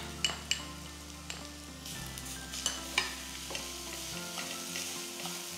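Grated coconut and sugar being stirred with a wooden spatula in a stainless steel pan, sizzling in hot ghee, with scattered clicks of the spatula against the pan.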